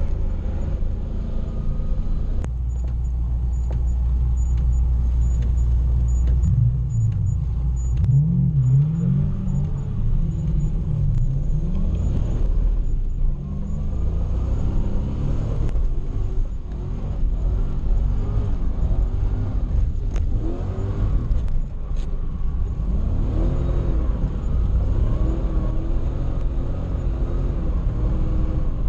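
Toyota 1UZ-FE V8 in a Nissan 240SX, heard from inside the cabin, revving up and down while drifting. It holds steady for the first few seconds, then the pitch rises and falls over and over in two spells.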